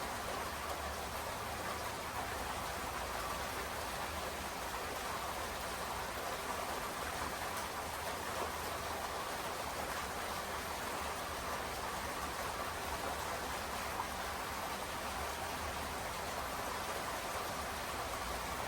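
Steady rainfall: an even hiss of many drops that keeps on without let-up.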